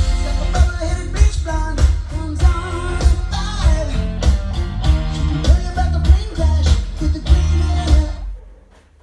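Music with singing and guitar over a heavy bass beat, fading out near the end.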